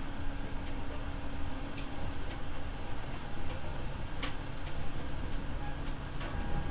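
Running sound inside a Seibu 301 series resistance-controlled electric motor car: a steady rumble of wheels and motor on the rails, with a few sharp ticks about two and a half seconds apart.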